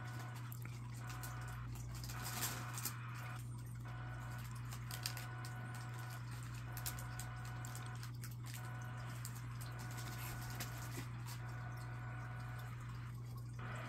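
Low steady electrical hum under faint hiss, with a few soft clicks.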